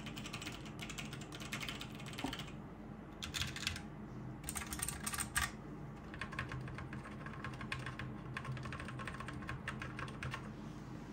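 Mechanical keyboard keys being typed on in several bursts of rapid clicks, with a PC fan humming steadily underneath.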